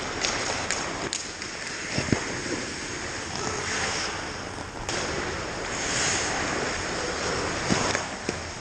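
Ice hockey skates scraping and carving on the ice, with sharp clicks of sticks and puck during a scramble around the goal, and two heavier thuds, one about two seconds in and one near the end.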